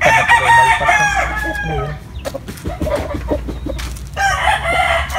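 Rooster crowing twice: one long crow of about two seconds at the start, and a second crow beginning about four seconds in, with a few light knocks and rustles between them.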